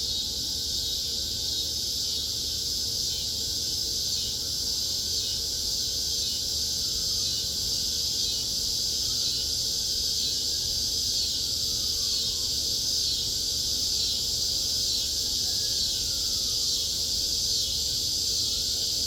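Cicada chorus: a steady, continuous high-pitched insect drone with no breaks, and a few faint tones sliding up and down beneath it.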